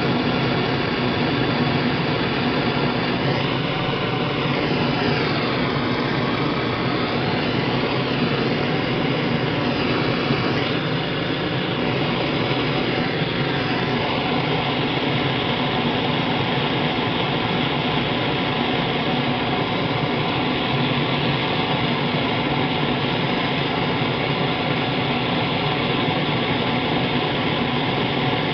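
Propane torch burning with a steady, loud rushing noise as it heats an aluminium lever.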